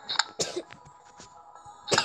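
Tablet memory-card game: a few short clicks as cards are flipped, then near the end the start of the game's bright chime for a matched pair.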